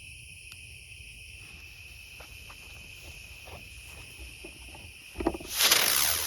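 Crickets chirring steadily. About five seconds in come a couple of pops, then a loud rushing hiss as the aerial spinner firework ignites and spins up.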